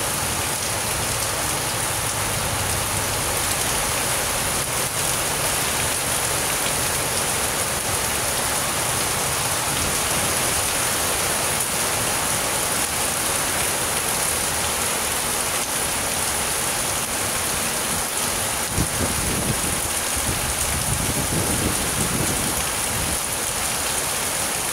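Heavy rain falling steadily, a dense, even hiss. About 19 seconds in there is a thump, then a low rumble lasting a few seconds.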